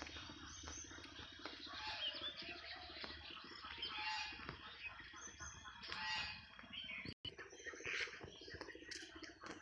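Many birds calling and chirping over one another in a busy chorus, broken by a brief moment of complete silence a little after seven seconds.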